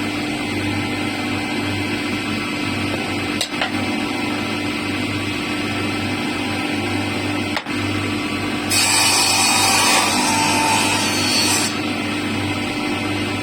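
Power tools running on wood, a steady machine hum with cutting and sanding noise; a louder, harsher stretch of cutting from about nine to twelve seconds in.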